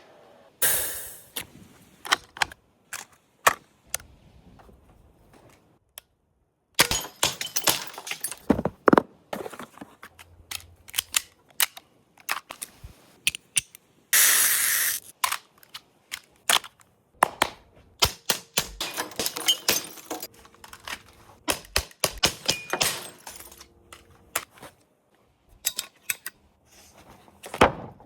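Airsoft gun being handled and fired: irregular sharp clicks, snaps and shots, with a longer burst of noise about halfway through.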